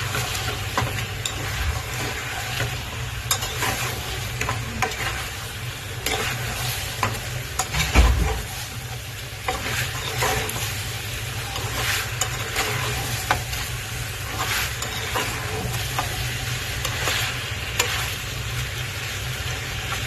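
Chicken masala sizzling in a pan while a spoon stirs it, scraping and clicking against the pan again and again, with one louder knock about eight seconds in. This is the stirring-in of freshly added pepper and cumin powder.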